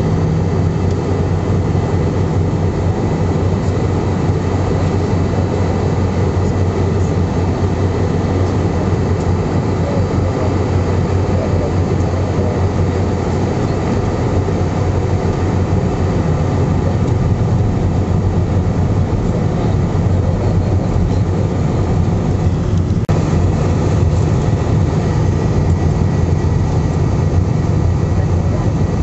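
Steady cabin noise of an Airbus A320 in flight on descent, heard from a window seat over the wing engine: an even, low jet engine and airflow rumble with faint steady whine tones. A single brief click about 23 seconds in.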